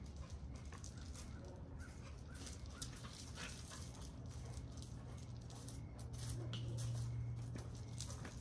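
A dog making faint sounds, with a few sharp clicks and a low steady hum that grows louder about six seconds in.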